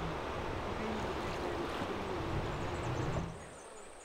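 Steady rushing noise of a fast-flowing river, with faint voices in it. It drops away abruptly about three seconds in.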